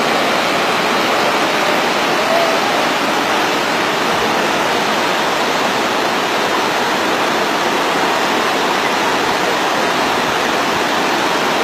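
Steady rush of turbulent whitewater rapids, an even noise without breaks.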